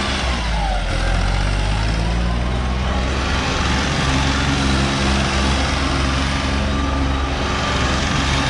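John Deere 5045 four-wheel-drive tractor's turbocharged diesel engine running hard under load while pulling a harrow. Its note dips about a second in and climbs again around halfway, over a steady rushing noise.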